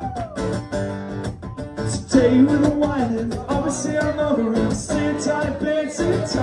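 Live solo acoustic guitar strummed through a PA, with a man's singing voice coming in about two seconds in and carrying on over the strumming.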